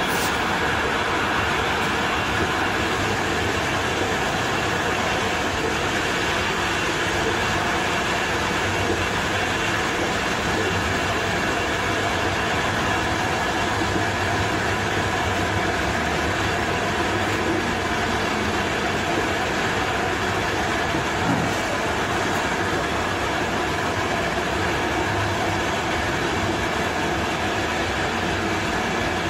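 Ada Express regional train running at speed on ballasted track, heard from the cab: a steady rumble of wheels on rail with no let-up, and one brief thump about two-thirds of the way through.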